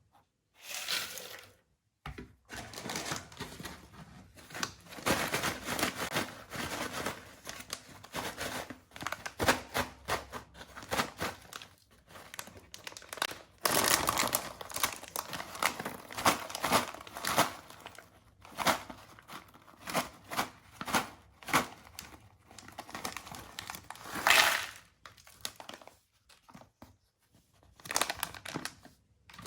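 Plastic snack packets being crinkled and torn open by hand, with irregular crackling and rustling that stops for a moment now and then.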